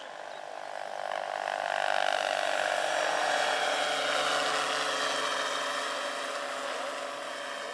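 Electric-powered large-scale RC model AS-350 Ecureuil helicopter with a 2.5 m rotor flying past: a steady whine from its motor and drive with the rotor's rushing sound. It grows louder from about a second in, is loudest in the middle, then fades as it passes.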